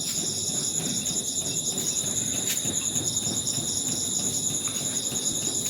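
A dense chorus of night insects, crickets among them, chirping steadily in a high, evenly pulsing trill, over a low background rustle.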